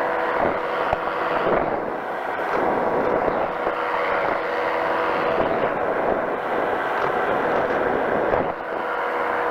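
Powered parachute's pusher engine and propeller running steadily in cruise flight: a constant drone with a few steady tones over a broad rushing noise.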